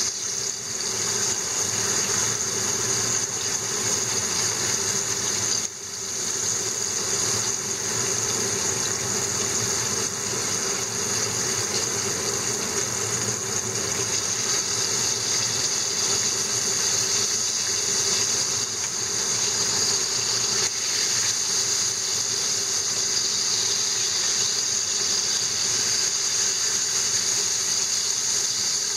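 Oil sizzling steadily as split horse mackerel (aji no hiraki) pieces deep-fry in a frying pan, a constant bubbling hiss.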